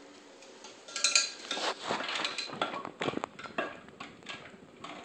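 Hand-cranked rotary egg beater turned in a glass bowl of milky liquid, its metal beaters clattering and clinking unevenly against the glass. The clatter picks up about a second in and eases off near the end.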